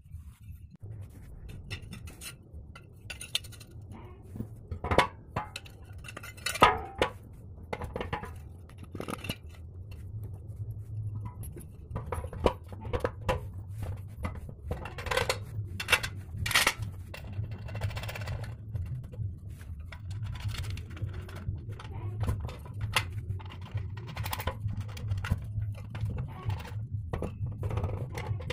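Irregular metallic clinks and knocks of metal parts being handled, over a steady low hum.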